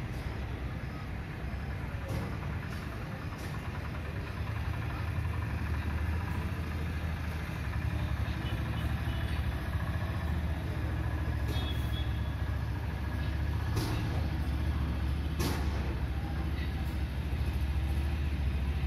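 A vehicle engine running with a steady low rumble that swells slightly partway through, with a few sharp knocks toward the end.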